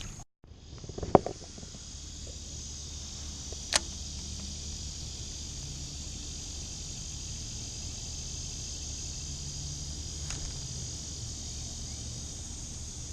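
Steady high-pitched insect chorus. There is a loud knock about a second in and a sharp click a few seconds later.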